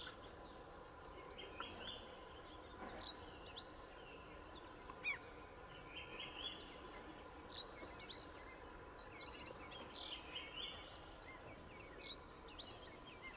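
Wild birds calling: short high chirps, whistles and a few quick trills, one after another every second or so, over a faint steady outdoor hiss.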